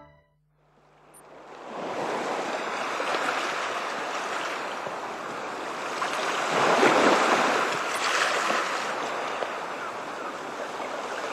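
Sea surf: waves washing onto a sandy beach as a steady rush. It fades in from silence over the first couple of seconds and swells loudest as a wave breaks about seven seconds in.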